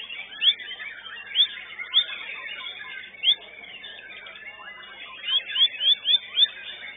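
White-rumped shama (murai batu) singing: loud, sharp upslurred whistles, spaced out at first and then five in quick succession near the end, over a dense jumble of chattering and warbling notes.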